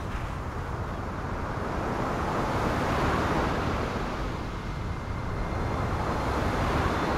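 Sea surf breaking and washing up on a sandy beach: a steady rush of waves that swells about three seconds in and again near the end.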